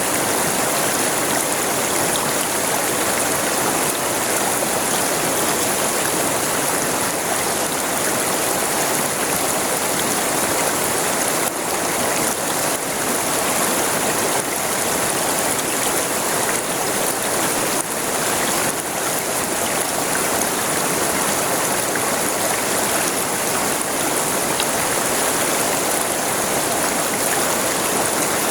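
River water flowing and rushing over its bed in a steady, unbroken wash.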